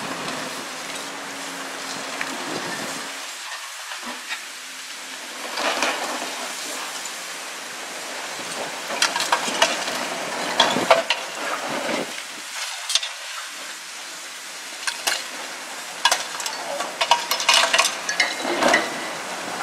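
Caterpillar 345C L long-reach excavator's demolition jaws crushing the concrete of a silo top: spells of crackling and cracking as the concrete breaks, first about six seconds in and then repeatedly from about nine seconds on. Under it the excavator's diesel engine runs steadily.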